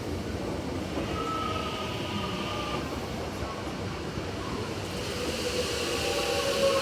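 Melbourne suburban electric train running at a station platform: a steady rumble with faint whining tones that slide in pitch.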